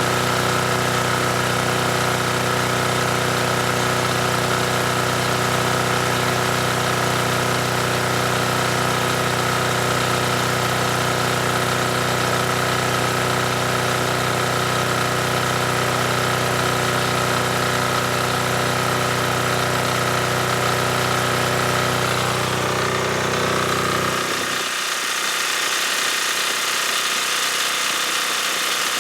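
ETQ DG7250LE single-cylinder diesel generator running steadily at a constant speed. About 24 seconds in, the sound changes abruptly and its low part drops away, leaving a steady hiss.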